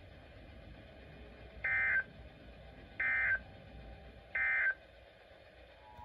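Three short bursts of Emergency Alert System SAME digital data tones from a NOAA weather radio's speaker, each about a third of a second long and roughly a second and a half apart. They are the coded header that opens an EAS test alert.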